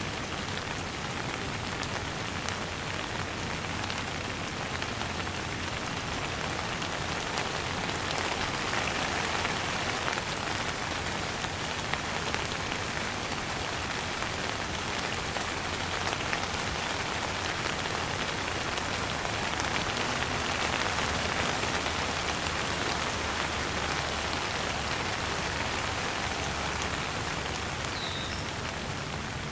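Steady rain falling, a continuous even hiss of drops hitting a surface.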